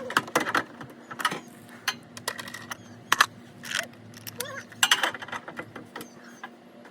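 Irregular metallic clinks and clicks from hand tools being handled during car suspension work.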